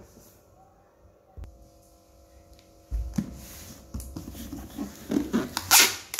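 A packed cardboard box set down with a low thud about halfway through, then hands rubbing and pressing over the box's taped cardboard surface, getting louder near the end with a loud scraping rush.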